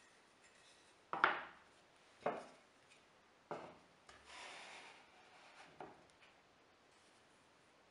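Plywood push-block parts being handled on a plywood board: four wooden knocks as pieces are set down, the first the loudest, and a scraping slide of about a second between the third and fourth as a piece is pushed along wood.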